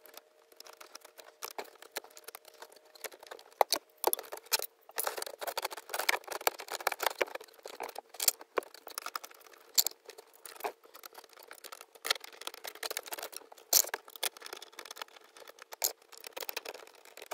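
Irregular small clicks, taps and rattles of hands handling plastic clips, wiring connectors and the shifter boot retainer plate in a car's centre console, over a faint steady hum.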